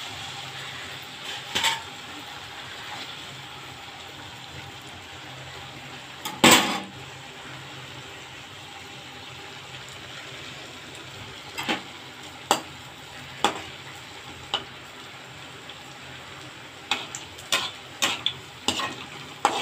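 Hot oil sizzling steadily in an aluminium kadai, with a metal slotted spoon clinking against the pan: one loud clink about six seconds in, a few more around the middle, and a quick run of clinks near the end.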